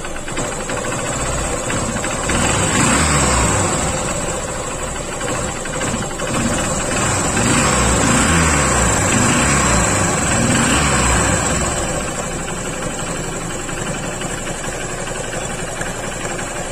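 Honda CB Shine single-cylinder four-stroke engine idling, with a faint returning rattle from the timing chain; it swells louder twice. The mechanic puts the noise down to a worn cam chain tensioner whose spring has gone bad.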